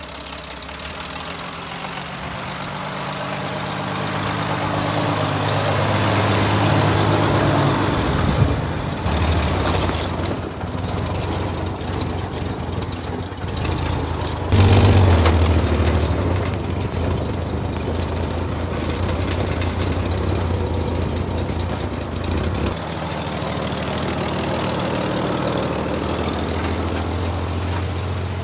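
1931 Chevrolet coupe's inline-six engine pulling the car along on tire chains through snow. The engine note climbs in pitch for the first several seconds, drops and builds again about eight seconds in and once more, loudest, around fifteen seconds, then runs fairly steadily.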